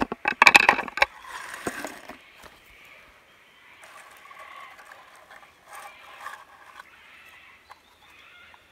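Plastic humane mouse trap clicking and clattering as it is handled and opened on the ground, followed by fainter rustling and scattered clicks.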